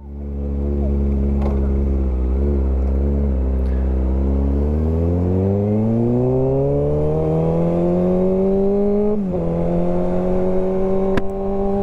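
Sport motorcycle's engine idling, then pulling away: its pitch rises smoothly for about four seconds, dips briefly about nine seconds in, then holds steady. A single sharp click near the end.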